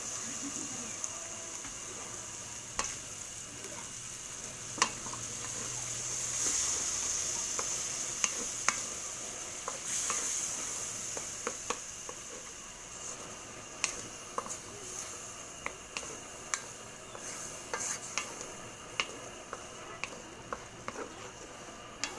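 Wooden spatula stirring sausage and cream in an aluminium wok, with many sharp taps and scrapes against the pan, over a steady sizzle that eases in the second half.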